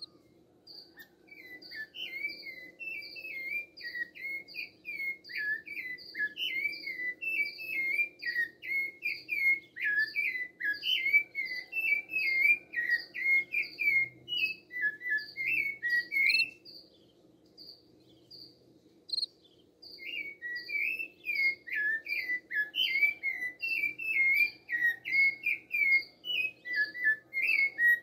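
Rufous-bellied thrush (sabiá-laranjeira) singing a long run of varied, fluting phrases, breaking off for a few seconds past the middle and then starting again. Behind it a cricket chirps steadily, about twice a second.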